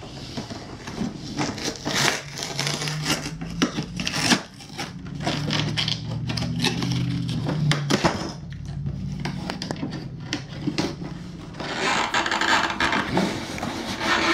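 A cardboard toy box being scraped, pried at and torn open by hand, with many short scrapes and clicks and a denser stretch of tearing near the end. A low steady hum runs for several seconds in the middle.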